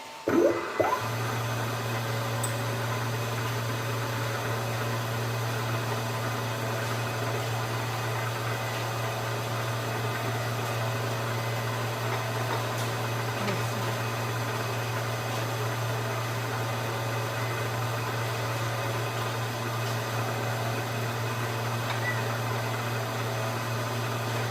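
Bridgeport vertical milling machine starting about half a second in, with a few short knocks, then running steadily with a constant motor hum while it makes a pass across the workpiece.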